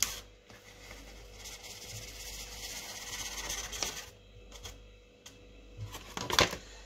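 Shake powder pouring from a paper sachet into a water-filled plastic shaker cup, a soft steady hiss for a few seconds, followed by a sharp tap about six seconds in.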